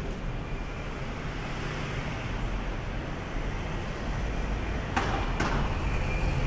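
Street traffic noise: a steady low rumble of vehicles on a busy city street. About five seconds in come two short, sharp hissing sounds in quick succession.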